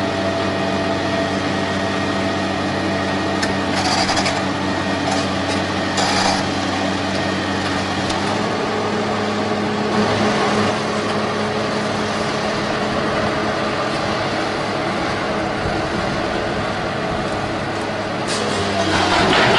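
Heavy-equipment engine running steadily, with a few sharp knocks or clanks and a louder stretch of mechanical noise near the end.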